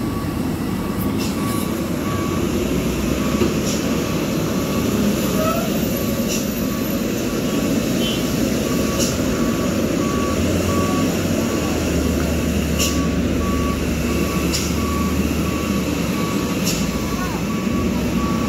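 Heavy diesel trucks running slowly in low gear, with a truck's reversing beeper giving a steady train of short, high beeps throughout.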